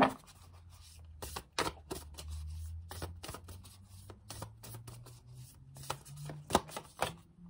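A tarot deck being shuffled and handled by hand: a run of irregular light card clicks and slaps, with a sharper snap at the very start.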